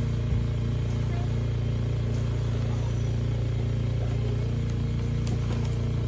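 A steady low droning hum with a fast, even pulse in it, and a single low thump about a third of a second in.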